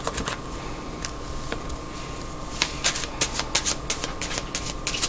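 A deck of oracle cards shuffled by hand: a few scattered soft clicks at first, then a quick run of sharp card snaps from about halfway through.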